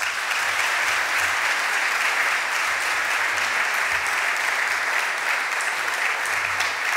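Audience applause, steady and sustained, as a speaker finishes at the podium and the next one steps up.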